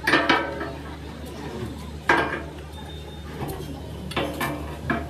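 Sharp metal clanks of steel being struck, a handful of separate blows, each followed by a brief ring.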